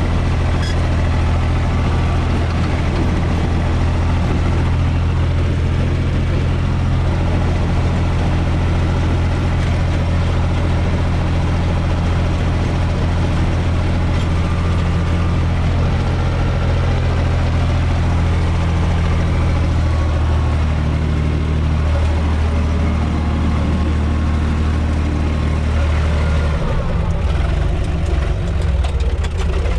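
UTB 445 tractor's four-cylinder diesel engine running steadily while driving, heard from inside the cab. About 26 seconds in, the engine note changes and becomes rougher.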